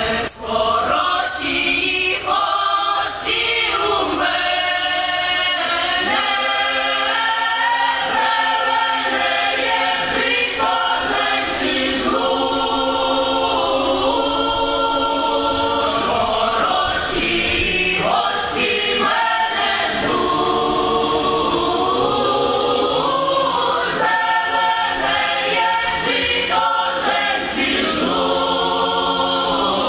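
A Ukrainian folk choir singing a folk song together, in several parts, with long held notes.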